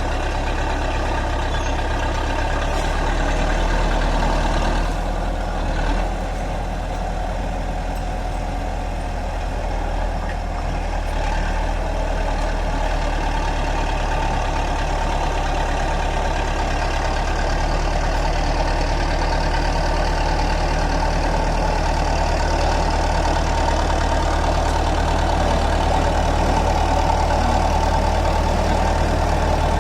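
Bulldozer's heavy diesel engine running steadily.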